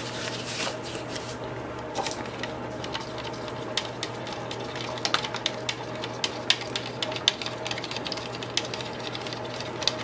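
Wooden stirring stick clicking and scraping against the inside of a clear plastic cup of thinned tung oil in short, irregular ticks, over a steady low hum.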